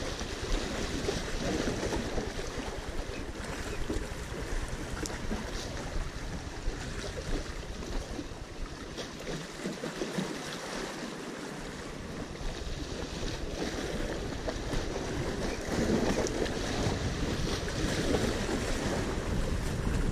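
Small waves washing and splashing against jetty rocks, with wind buffeting the microphone. The wind rumble drops away for a couple of seconds near the middle.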